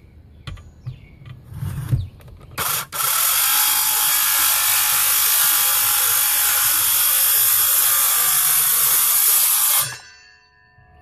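A few clicks and knocks of handling, then a Dewalt 18-volt cordless saw starts abruptly and cuts steadily for about seven seconds before stopping, running off a 19.2-volt battery through a homemade adapter.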